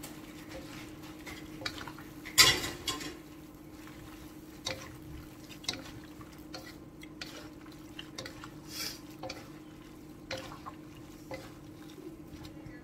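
Two wooden spatulas tossing and stirring vegetables in a wok, with irregular scrapes and knocks against the metal. The loudest knock comes about two and a half seconds in, over a steady low hum.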